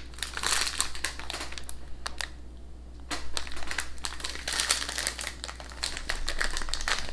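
Crinkling and crackling of a plastic-wrapped tube of biscuits being handled and turned over in the hands, in irregular bursts of rustle and clicks.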